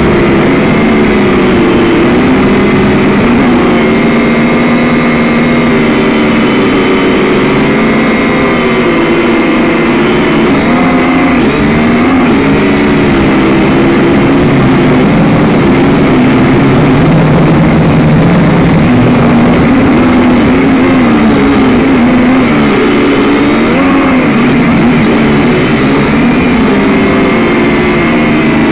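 Drone's electric motors and propellers heard up close from its own onboard camera: a loud, steady buzzing hum whose pitch wavers up and down as the motors change speed in flight.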